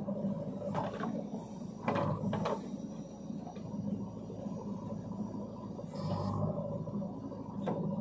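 JCB 3DX backhoe loader's diesel engine running steadily while its hydraulic boom swings from the trolley back to the soil pile, with a few sharp clunks about one to two and a half seconds in and another near the end.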